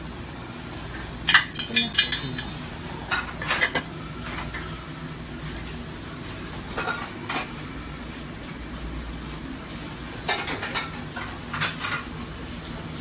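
Thin aluminium pots and lids clinking and clattering against each other and the metal grate of a commercial gas range, in four short bursts. A steady low rumble of the gas burners runs underneath.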